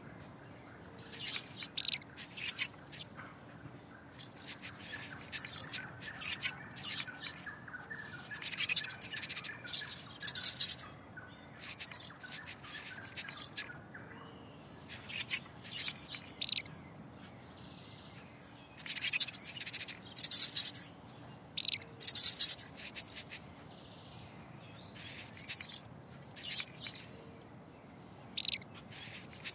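Clusters of short, high-pitched chirps and squeaks, coming in bursts every second or two, over faint steady woodland background.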